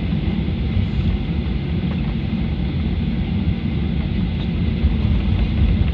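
Cabin noise inside a Boeing 737-800 taxiing: a steady low rumble from the CFM56 turbofan engines and the wheels on the taxiway, with a faint steady high whine.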